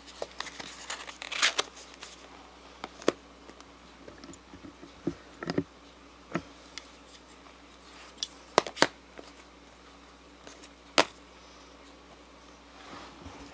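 Handling noises from small objects moved about on a table: about nine scattered sharp clicks and knocks, with a brief rustle about a second and a half in.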